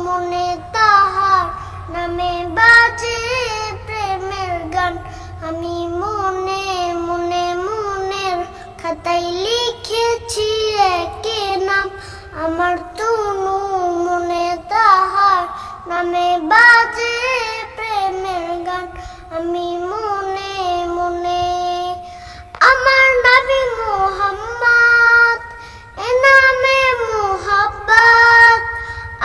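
A young boy singing a Bengali Islamic gojol (ghazal) in long, wavering phrases. About two-thirds of the way through, the melody steps up to a higher, louder line.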